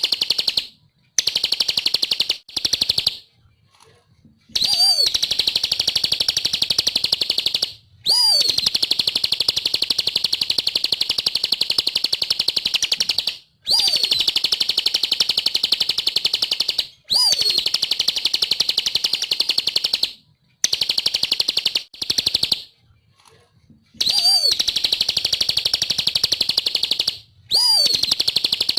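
Bar-winged prinia (ciblek) singing in full, vigorous song: long, very fast, high-pitched trills lasting a few seconds each, many opening with a short rising-and-falling whistle, with brief pauses between phrases.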